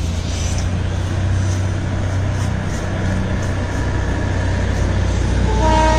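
A heavy vehicle engine runs with a steady low rumble. Near the end a loud multi-tone horn starts to blow and holds.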